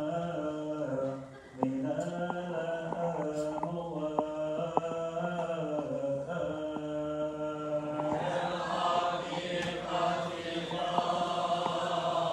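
Coptic Orthodox liturgical chant: sung voice holding long notes that glide slowly from pitch to pitch, with light sharp strikes keeping a steady beat of about one and a half a second. The singing grows fuller about eight seconds in.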